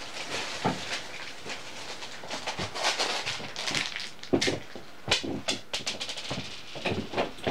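Irregular rustling, clicking and knocking of things being handled and moved about, with a few louder knocks in the second half.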